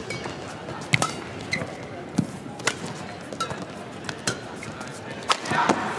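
Badminton rally: a shuttlecock struck back and forth by rackets, sharp hits every half second to a second, with short squeaks of shoes on the court between them.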